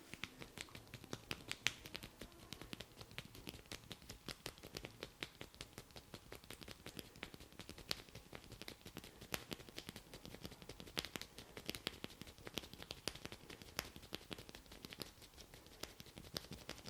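Hair cracking: crisp snapping clicks as the masseur tugs small tufts of hair between his fingers, many a second in an irregular patter, stopping near the end.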